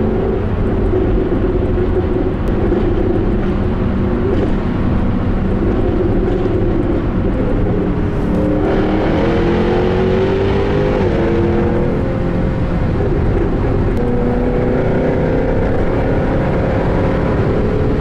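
Jaguar F-Type R coupé's supercharged 5.0-litre V8 driving through a tunnel, a steady engine note at first. About halfway it pulls harder and the pitch rises, dips once and climbs again.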